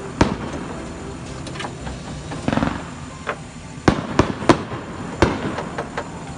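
Aerial fireworks going off: scattered sharp bangs and pops, a short run of crackling about two and a half seconds in, and three loud bangs in quick succession around four seconds in.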